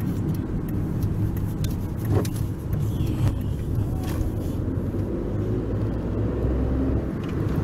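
A car being driven, heard from inside the cabin: a steady low rumble of engine and road noise, with a few faint clicks.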